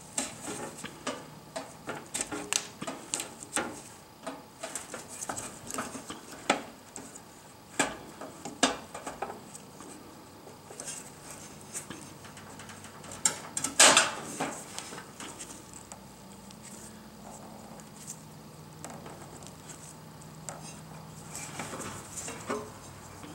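Gloved hands handling parts at the fuel filter inside a kerosene bullet heater: a run of light clicks and knocks, busiest in the first nine seconds, with one louder knock about fourteen seconds in.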